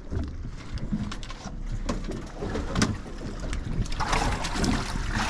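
Irregular knocks and thumps on an aluminium fishing boat as a freshly netted salmon and the landing net are handled on deck, over a steady low motor hum. A loud rushing hiss comes in for the last second or so.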